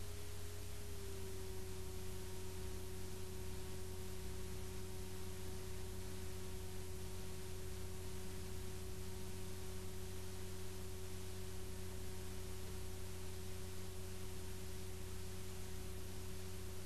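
Steady electrical hum and hiss with a single steady tone, which drops slightly in pitch about a second in.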